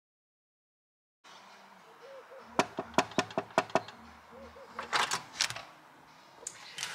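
Knuckles knocking on a door: a quick, even run of about six knocks, then a shorter run of knocks about two seconds later.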